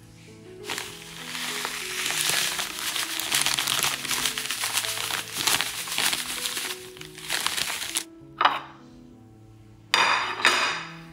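Dry bread crumbs poured from a plastic bag onto a ceramic plate, a steady rustling hiss with the bag crinkling, lasting about seven seconds. Near the end come a few sharp knocks and clinks as the plate is moved on the countertop.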